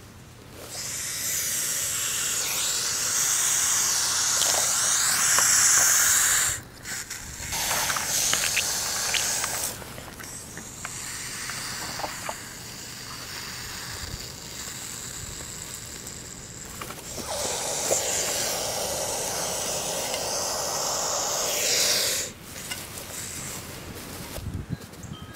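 Hognose snake hissing in defence, giving several long, loud exhalations that stop abruptly between breaths, with the longest lasting about six seconds.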